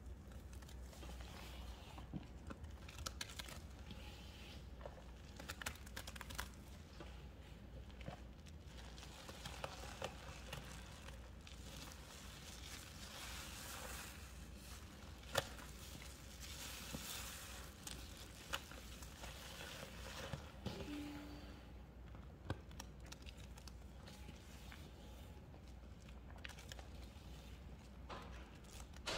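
A wet, soapy paste of baking soda and toilet-bowl cleaner being worked and squeezed, with soft, irregular crackling and squishing and scattered sharp clicks. The sharpest click comes about halfway through.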